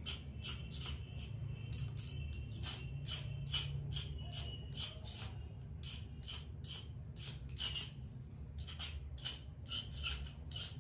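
Blade shaving a thin bamboo kite spine: quick scraping strokes, two or three a second, over a steady low hum.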